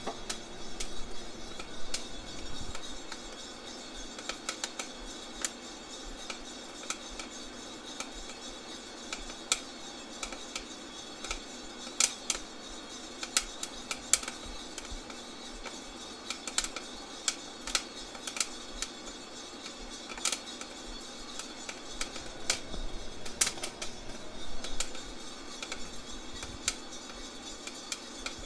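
Coffee beans popping through first crack in a Feima 100N drum roaster: irregular sharp cracks, scattered and at times in quick clusters, over the roaster's steady running noise.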